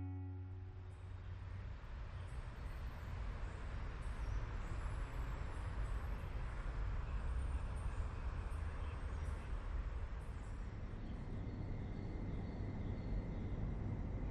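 Steady background noise, a low rumble with hiss and faint high chirps, following the end of an acoustic guitar song.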